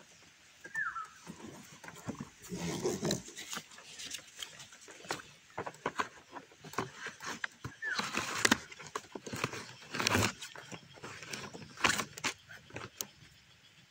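A motorcycle riding over a rough dirt track, with irregular rattling and knocking from the bike and its load as it jolts over the bumps.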